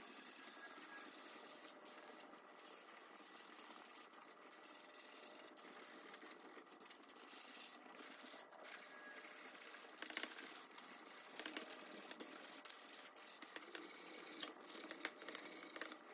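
Fine sandpaper (about 250 grit) rubbing by hand over a flat-black painted frame, giving a faint, steady scratchy sanding noise. A few sharp clicks and knocks come in the second half, as the frame is handled.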